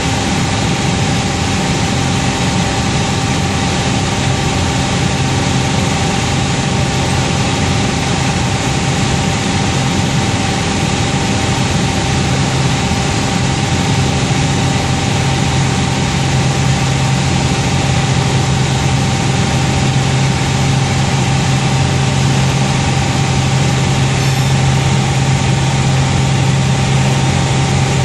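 Piper Saratoga's six-cylinder piston engine and propeller running steadily in cruise flight, heard inside the cabin as a loud drone with a hiss of airflow. A low hum grows stronger about twelve seconds in.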